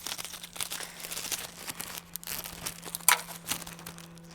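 Irregular scraping and clattering of hand tools and metal parts as the front rack bolts are worked on, with one sharp clack about three seconds in. A faint steady low hum runs underneath.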